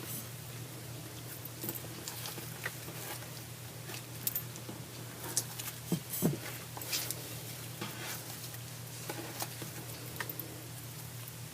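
Slime being handled and kneaded by hand: scattered soft sticky clicks and squelches, a few louder ones about midway, over a steady low hum.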